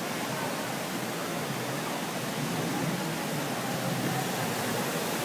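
Steady wind noise rushing over a phone's microphone, an even hiss with no breaks.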